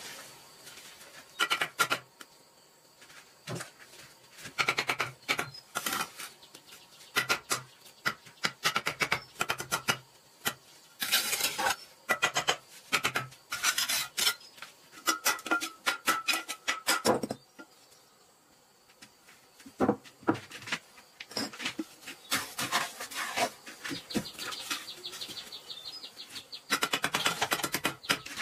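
Steel bricklaying trowel scraping wet mortar across clay bricks, in quick runs of short strokes with brief pauses between.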